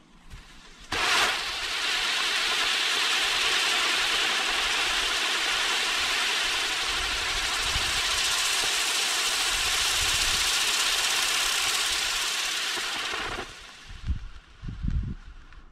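Firework spinning wheel (Brothers Pyrotechnics Destiny Wheel) catching with a sharp crack about a second in, then hissing loudly and steadily as its drivers spin it and spray sparks, cutting off suddenly after about twelve seconds. A few low thuds follow near the end.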